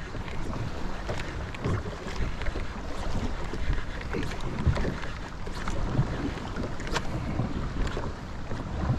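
Wind buffeting the microphone over choppy water lapping against a small plastic boat's hull, with scattered light knocks.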